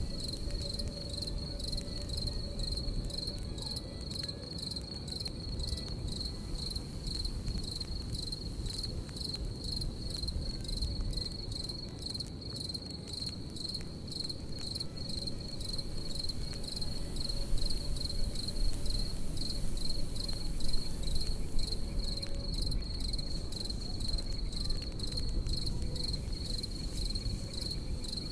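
Crickets chirping in a fast, steady pulse on one high pitch, over a campfire crackling with frequent small pops and a low rushing rumble. A few louder pops come past the middle.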